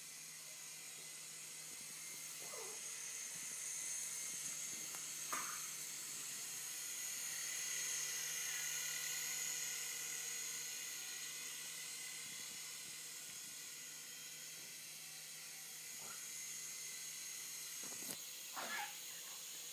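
Syma S102G mini Black Hawk RC helicopter's small electric motors and rotors whining steadily in flight, growing louder toward the middle and fading again as it moves nearer and farther away. A few brief squeaks stand out, one about five seconds in and two near the end.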